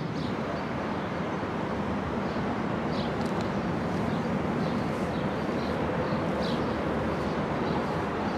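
Steady low engine rumble, with faint high chirps now and then above it.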